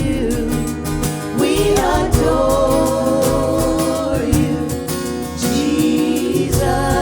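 Live worship band music with sustained, wavering singing over a steady bass and beat.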